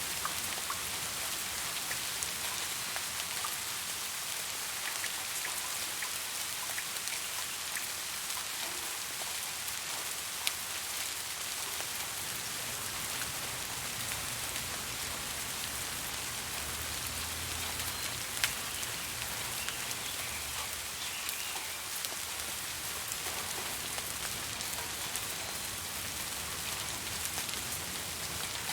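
Steady rain falling, an even hiss with individual drops ticking on a surface; two drops land louder than the rest partway through.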